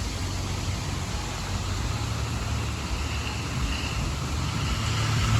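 A car driving along a rain-soaked road, its engine rumble and tyre hiss growing louder near the end, over the steady hiss of heavy rain and wind.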